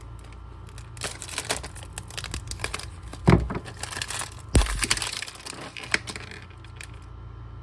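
Plastic blind-bag packaging of a minifigure being torn open and crinkled, with two louder knocks about three and four and a half seconds in.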